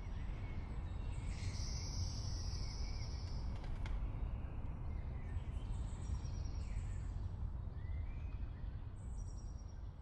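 Outdoor evening ambience: a steady low rumble with birds chirping now and then over it. A high, thin sound is held for about two seconds, starting a second and a half in.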